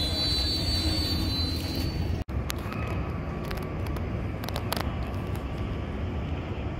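Amtrak Superliner passenger train rolling slowly past along the platform, with a low rumble and a faint, high, steady squeal. It cuts off abruptly about two seconds in and gives way to a steady low street-traffic rumble with a few light clicks.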